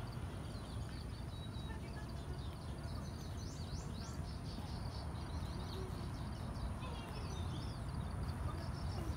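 Outdoor ambience: a steady low rumble of background noise with small birds chirping now and then, most busily in the middle.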